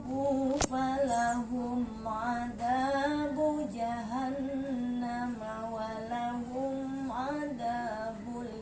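A woman chanting Quranic recitation in a melodic tajwid style, drawing out long held notes with gliding ornaments and short pauses between phrases. A single sharp click comes about half a second in.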